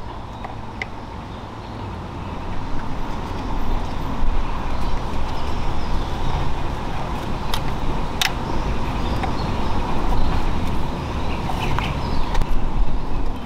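Motor vehicle running: a steady low rumble under a noisy hiss, with a few sharp clicks scattered through.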